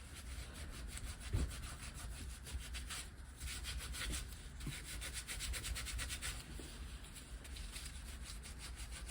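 Brush scrubbing the casing of a Minarelli AM6 50cc engine during cleaning, in quick, steady back-and-forth strokes.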